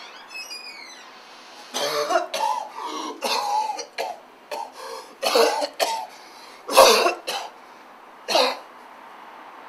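A person coughing in repeated harsh fits, about a dozen coughs spread over several seconds. A brief falling tone sounds just before the coughing starts.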